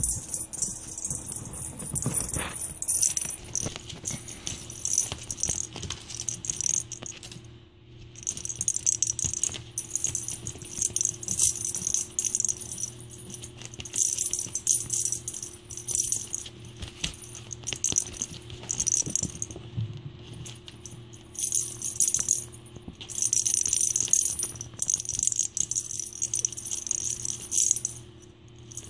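A bell inside a hollow plastic cat-toy ball jingling and rattling in short bursts as kittens bat it around, with brief pauses now and then. A faint steady hum sits underneath.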